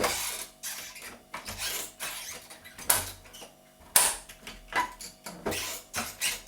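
Interior door handle being pressed and released, its lock mechanism clicking several times, most sharply about three and four seconds in.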